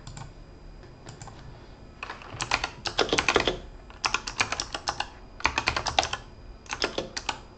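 Typing on a computer keyboard: after a quiet start, four quick runs of keystrokes with short pauses between them, beginning about two seconds in.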